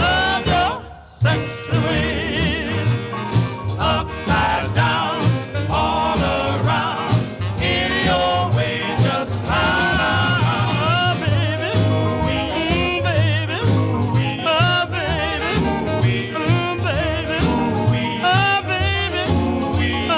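A song with a singing voice over a steady pulsing bass beat, dropping out briefly about a second in.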